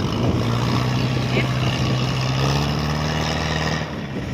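Engine of a tracked farm machine running steadily, its note easing off shortly before the end.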